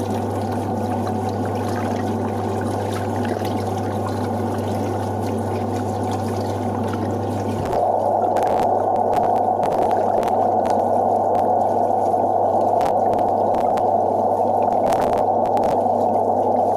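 Tap water running steadily into a sink; about eight seconds in the flow gets louder, with a few scattered clicks and knocks after it.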